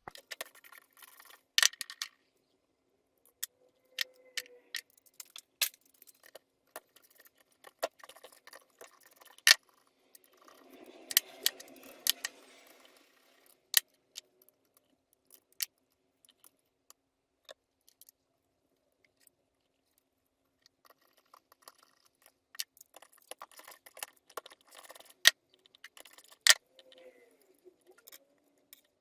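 Hand tools and small metal engine parts clinking and tapping on a workbench in irregular, sharp clicks while a cylinder head is taken apart. About eleven seconds in comes a couple of seconds of rustling and scraping.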